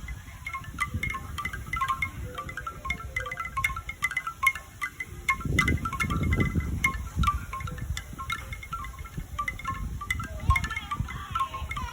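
Bamboo wind chime, its tubes knocking together in quick irregular strokes, each with a short pitched tone. A low rumble sits underneath and grows stronger about halfway through.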